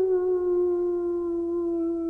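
Wolf howling: one long call held at a nearly steady pitch, easing slightly lower.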